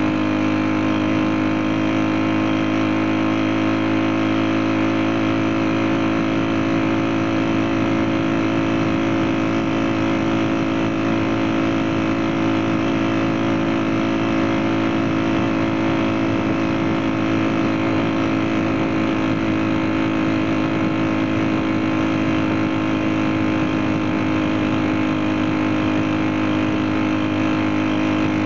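Small 35 cc four-stroke single-cylinder engine of a lightweight bicycle-based motorcycle running steadily at one even pitch.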